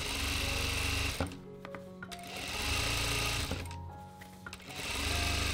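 Industrial sewing machine stitching in three short runs of about a second each, with pauses between them, as it sews elastic onto fabric through a shirring foot. A sharp click about a second in. Background music throughout.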